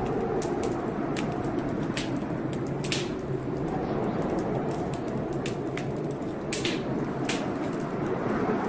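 Wood fire in a fireplace crackling, with irregular sharp pops and snaps over a steady low rushing noise.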